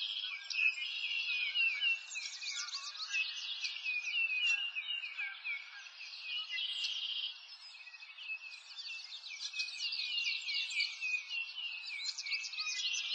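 A dense chorus of many small birds chirping and twittering, with quick overlapping calls that never pause.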